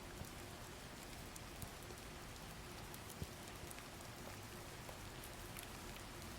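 Steady rain ambience: a soft even hiss of falling rain with scattered drops ticking on a surface.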